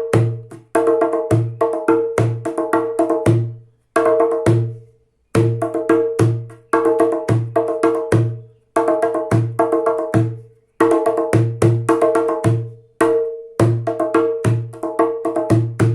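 Small djembe hand drum played Arab style: a repeating rhythm that mixes deep doum strokes in the head's centre with sharp, ringing tek strokes at the rim. The rhythm comes in phrases of quick strokes, broken by several short pauses.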